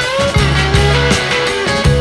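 Background rock music with electric guitar, held bass notes and a steady beat.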